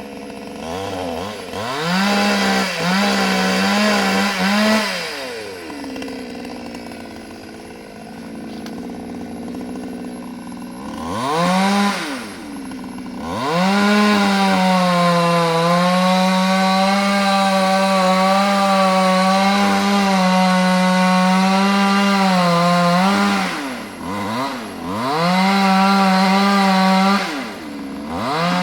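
Two-stroke chainsaw run at full throttle, cutting wood of a large aanjili (wild jack) tree. It revs up in about the first second and a half, drops back around 5 s for a lower-pitched stretch, revs again briefly near 12 s, then holds a long steady full-throttle run until about 23 s, with short drops and re-revs near the end.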